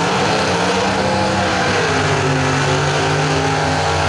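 Drag-racing ute's 402-cubic-inch stroker V8 held at high revs for a burnout, with the rear tyres spinning on the track.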